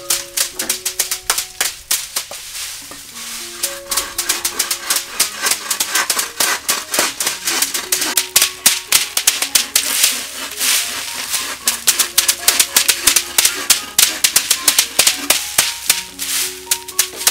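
Dried bean pods being beaten with wooden sticks in a woven bamboo tray: rapid, irregular cracking and rattling as the pods split and the beans shake loose. Background music with a melody plays underneath.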